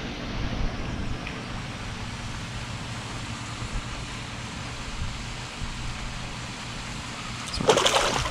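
A hooked bass splashing and thrashing at the water's surface in a short burst near the end; before that only a steady low hum and wind-like background noise.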